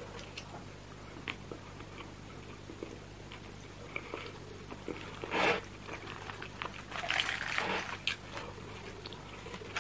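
Close-miked eating sounds of roast chicken: small wet clicks as fingers pull at the meat, and chewing and mouth sounds. There is a louder crackly burst about five and a half seconds in and a longer crackly stretch around seven to eight seconds, over a faint steady hum.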